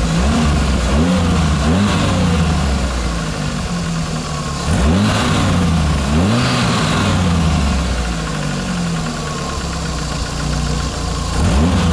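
Lada Niva's four-cylinder petrol engine idling, blipped about six times so the pitch rises quickly and falls back each time. No hydraulic lifter tapping stands out: the owner takes it that the diesel-fuel flush of the oil system has quietened the lifters.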